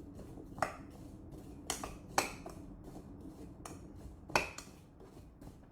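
A metal spoon clinking against its container as diced apples are stirred with cinnamon: about six irregular clinks, with soft stirring between them.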